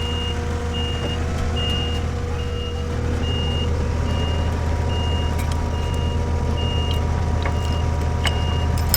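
Skid steer's backup alarm beeping steadily, about one beep a second, over the machine's engine running steadily.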